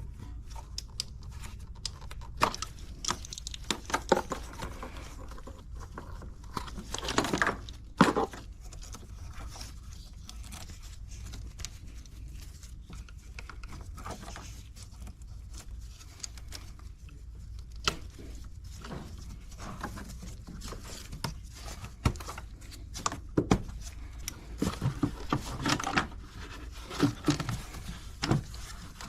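Irregular clicks, scrapes and plastic rattles of hand work in an engine bay: unclipping an electrical connector and hoses from the air intake, with the engine off. A low steady hum lies underneath.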